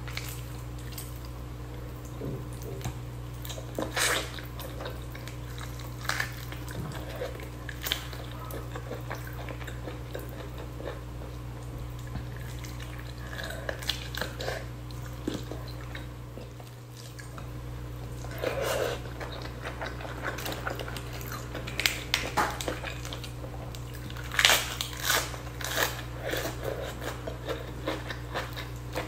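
Close-up eating sounds: chicken meat being torn apart by hand, bitten and chewed, with scattered wet clicks and crackles that cluster in short bursts, over a steady low hum.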